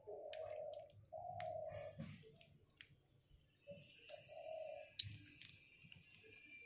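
Faint, irregular clicks of boiled pond snail shells knocking against each other and against a safety pin as the meat is picked out, the sharpest click about five seconds in. Three short low hums sound in the background.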